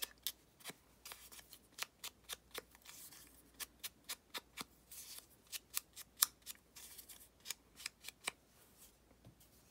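Mini ink blending tool dabbed again and again against the edges of a paper cutout to ink them: a run of light, dry taps at about three or four a second, pausing briefly a few seconds in.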